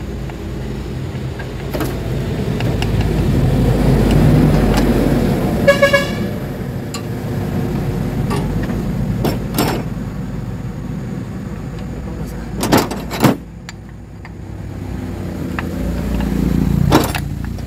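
A heavy diesel truck engine rumbling low. The sound swells twice, with a brief tooting tone about six seconds in and a few sharp metallic knocks, two of them loud, near the middle.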